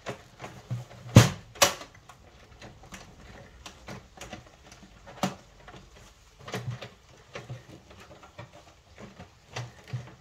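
Plastic clicks and knocks from a Canon Pixma TS5140 inkjet printer's front panel and inner parts being handled and pushed on a panel that won't go down. Two loud clacks come about a second in, another a few seconds later, with lighter taps between.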